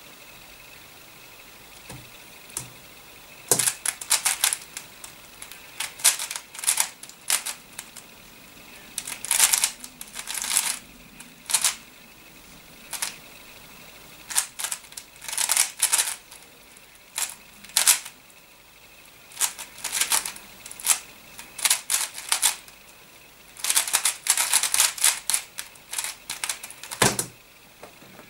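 Plastic layers of a Cutter Cube twisty puzzle being turned fast by hand in a speed solve: rapid clicking and clacking in bursts separated by short pauses, starting a few seconds in. A single thump about a second before the end closes the solve.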